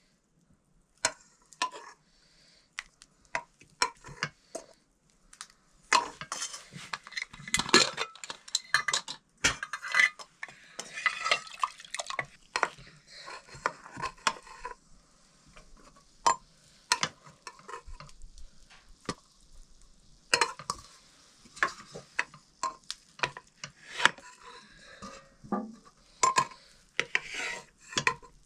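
Metal spoon or ladle clinking and scraping against metal pots and dishes in irregular knocks, busiest in the first half and again near the end.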